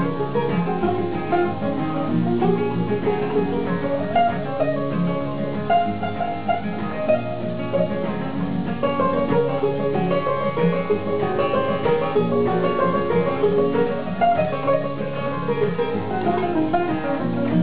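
Banjo and acoustic guitar playing together in an instrumental break, plucked notes running steadily with no singing.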